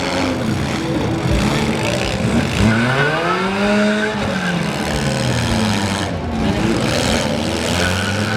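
Several four-cylinder car engines revving at once, their pitches rising and falling over one another as the cars accelerate and back off in a demolition derby.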